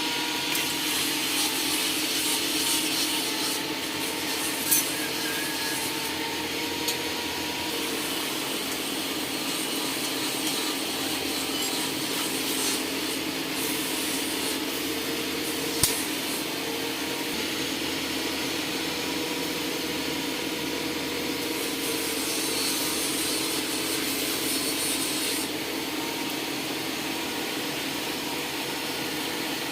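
Steady rasping and whirring of a motor-driven workshop machine running without pause, with two sharp clicks, about a third of the way in and just past halfway.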